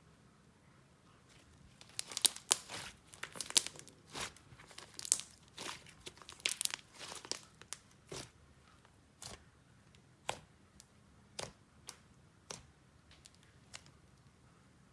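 Slime being stretched and squished by hand, crackling and popping. There is a quick run of sharp crackles from about two seconds in until about eight seconds, then single pops roughly once a second.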